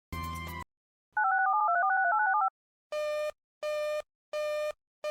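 Telephone line sounds: a short crackling burst, then a quick run of touch-tone (DTMF) dialing tones about a second in, then a buzzy busy-signal tone beeping on and off about every three quarters of a second from about three seconds in.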